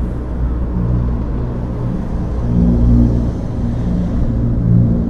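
Antonov An-22 flying over, its four turboprop engines with contra-rotating propellers making a deep drone. The low tones pulse as they swell and fade.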